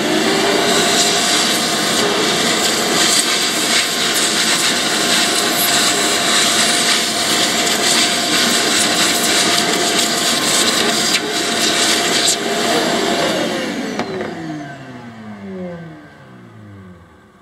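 Vacuum cleaner running, its hose nozzle sucking dirt and sand out of an electric boat motor's housing. About 13 seconds in it is switched off and its motor winds down with a falling whine.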